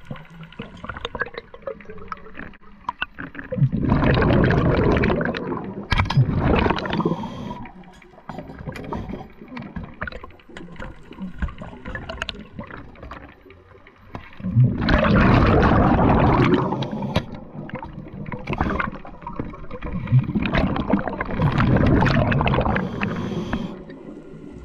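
Scuba diver breathing through a regulator underwater: three long bursts of exhaled bubbles gurgling loudly, with quieter hiss and clicks between them.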